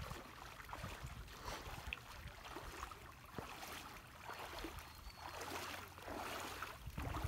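Shallow lake water sloshing and splashing around the legs of a person wading through it, in an uneven rhythm that grows louder near the end.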